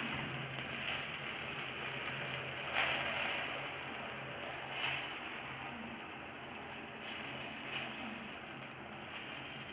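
Egg adai batter frying in oil on a dosa tawa: a steady sizzle with occasional sharp crackles, slowly getting quieter.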